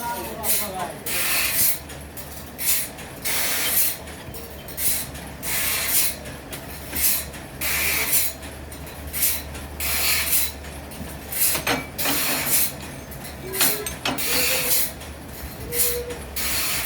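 Sawmill machinery cutting wood: short rasping strokes repeating about every two-thirds of a second over a steady low machine hum.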